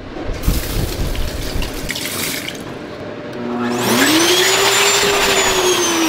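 Water running into a sink, then an electric hand dryer starting up about four seconds in. Its motor whine rises quickly in pitch and holds steady over a strong rush of air.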